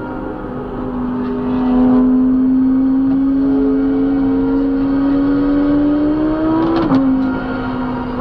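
Car engine accelerating, its pitch climbing steadily through one gear, then dropping suddenly with an upshift near the end.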